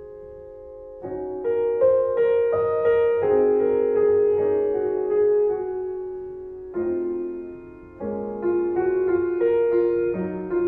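Solo piano music: slow phrases of struck notes that ring and fade, starting after a brief lull about a second in.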